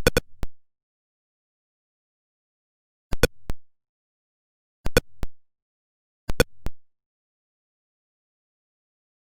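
Atari Pong sound-effect blips: short electronic beeps in quick clusters of three or four. The clusters come at the very start, about three seconds in, about five seconds in and about six and a half seconds in, with dead silence between them.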